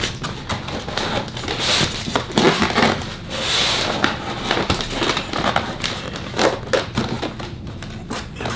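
Foam packing and a cardboard box rubbing, squeaking and creaking as a computer monitor is worked up out of its box, with irregular crackles and scrapes throughout.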